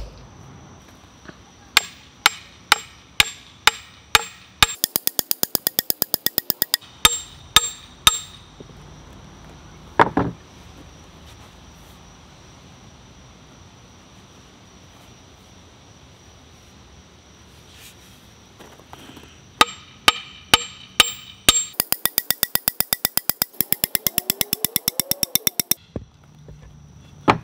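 A sledgehammer's new wooden handle struck down end-first on a wooden board again and again to seat the head: sharp knocks about two a second, broken by two long runs of very rapid, evenly spaced knocks, with a duller thud about ten seconds in.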